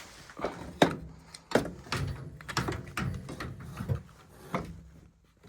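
Irregular knocks and clunks of metal parts being handled as the oil burner's motor and new pump coupling are fitted into the burner housing, the sharpest knock about a second in.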